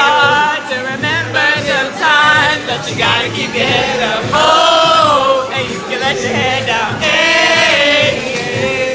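A group of people singing loudly along to a song, several voices together over recorded music, with long held and wavering notes.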